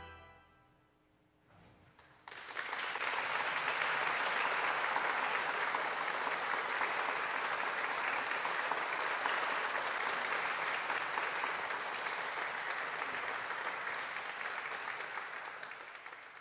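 The last pipe-organ chord dies away in the hall's reverberation. About two seconds in, an audience starts applauding steadily, and the clapping fades out near the end.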